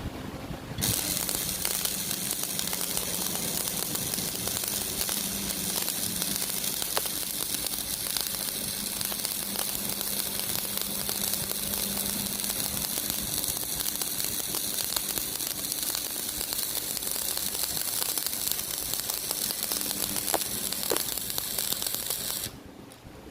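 Electric arc welding: the arc strikes about a second in and crackles and sizzles steadily through one long bead, then cuts off abruptly near the end.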